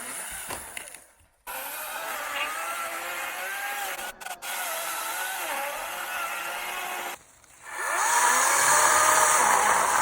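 Stihl chainsaw running and cutting wood, in several short clips joined together. Near the end it revs up and runs louder.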